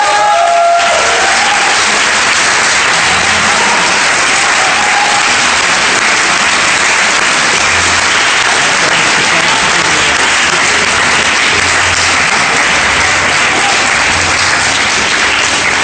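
Audience applauding, loud and steady, with the last notes of the music fading out in the first second.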